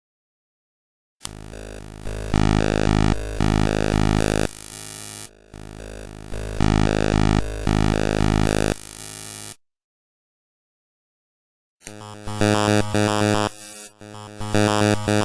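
Image data played back as raw audio: a harsh, buzzing digital tone made of many steady pitches, pulsing in an even rhythm. It comes in two stretches split by a couple of seconds of dead silence.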